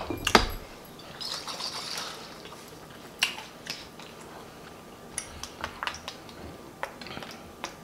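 Handling of a small glass Tabasco bottle: a knock as it is picked up, then scattered sharp little clicks and taps as its cap is taken off and the bottle is shaken over the plate.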